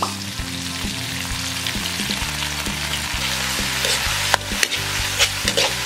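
Onions, garlic, ginger and tomatoes sizzling in hot oil with fish sauce in a metal wok, stirred with a metal wok spatula that scrapes the pan. Several sharp clinks of spatula on wok come in the last two seconds.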